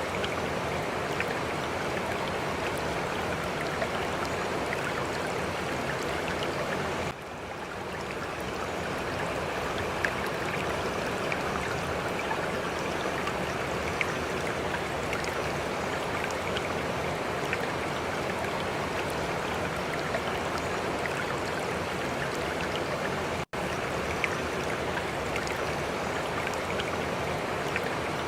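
Steady rushing noise like running water, with faint scattered clicks. It dips about seven seconds in and fades back up, and cuts out for an instant near the end.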